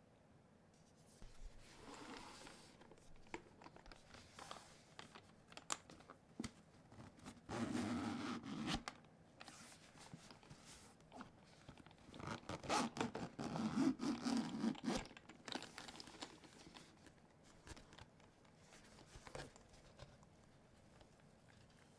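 Headphone packaging being opened and handled: faint tearing and rustling of wrapping and cardboard, with scattered light clicks and taps. There are two longer stretches of rustling, one about seven seconds in and one about twelve seconds in.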